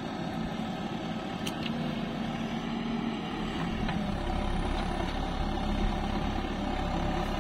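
Diesel engine of a JCB 3DX backhoe loader running under load as the machine works its way up a dirt slope. The low rumble grows heavier about three seconds in.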